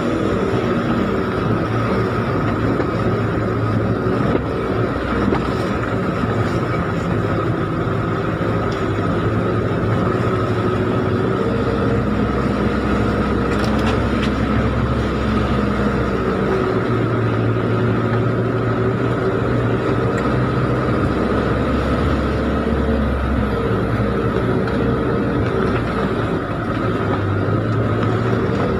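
Off-road 4x4's engine heard from inside the cabin, running at low revs in a low gear as it crawls along a shallow, rocky riverbed. The pitch rises and falls gently, with a steady whine above it.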